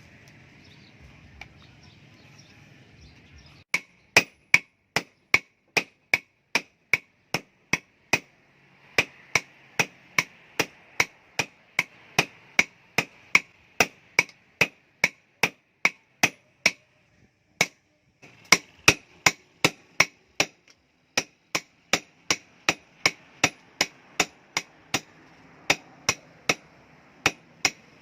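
Blacksmith's hammer striking steel on an anvil in steady forging blows, about two or three a second, each with a bright metallic ring. The blows start about four seconds in and pause briefly twice, over a steady background hum.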